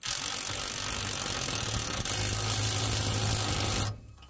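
Ryobi cordless impact wrench with a 21 mm socket running down the tie rod end nut on a Ford F-150 steering knuckle. It hammers steadily for about four seconds, then stops abruptly.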